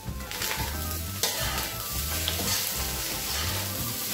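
Cauliflower fried rice sizzling in a nonstick pan over a high flame while it is stirred and tossed with a slotted metal spatula. A sharper stroke of the spatula comes about a second in.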